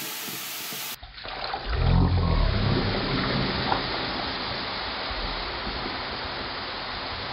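Baking soda, Coke and vinegar fizzing and foaming up out of a clogged sink drain: a steady hissing fizz, with a low rumble about two seconds in.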